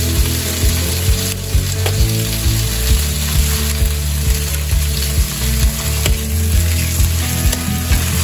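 Miso-marinated pork chops sizzling in a hot non-stick frying pan, a steady hiss of searing, with short clicks and scrapes of metal tongs as the chops are turned.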